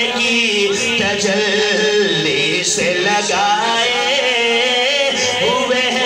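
A man singing a devotional naat solo into a microphone, amplified through a PA. He draws out long, wavering, ornamented notes and gliding runs rather than clear words.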